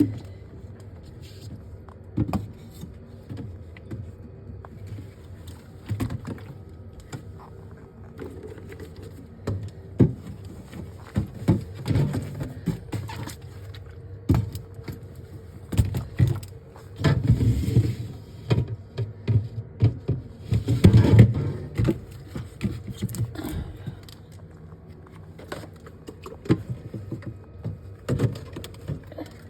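Irregular knocks, clunks and clatters of objects being handled and set down, with a few longer stretches of rubbing or rustling, in a small room with the echo that goes with it.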